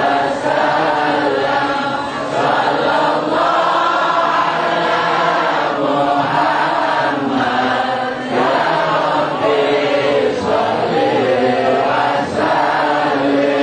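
A crowd of men chanting an Arabic Islamic devotional prayer in unison, in long sustained phrases with short breaks between them.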